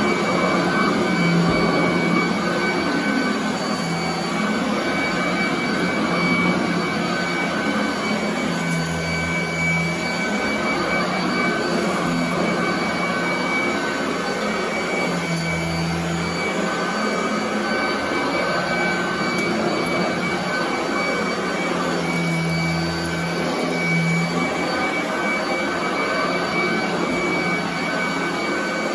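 Royal commercial vacuum cleaner running steadily over carpet, its motor giving a constant high whine. A lower hum swells and fades every few seconds as it is worked across the carpet.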